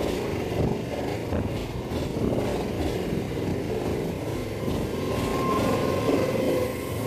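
Suburban electric multiple-unit local train passing close by at speed: a steady rumble and rattle of wheels and coaches on the track. A thin high steady tone comes in near the end.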